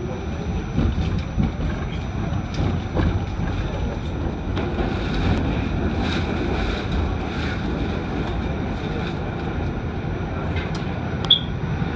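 R46 subway train running through a tunnel: a steady low rumble of wheels on rails with scattered light clicks, and a brief high squeak near the end.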